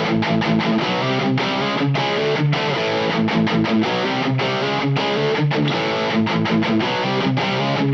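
Electric guitar played through a high-gain Teisco drive pedal with its tight switch engaged, giving a distorted, somewhat thinned tone. It plays short, choppy chords and riffs with frequent stops.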